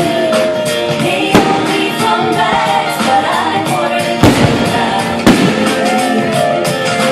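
Loud show music with a sung melody holding long notes, broken by sharp bangs of fireworks bursting, clearest about a second and a half in and twice more around four and five seconds in.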